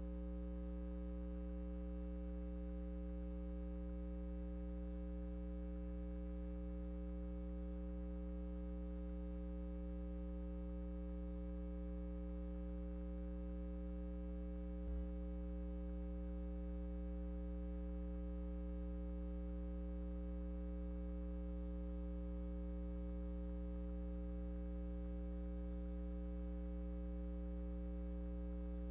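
Steady electrical mains hum with a stack of evenly spaced overtones, unchanging throughout, and one brief low thump about halfway through.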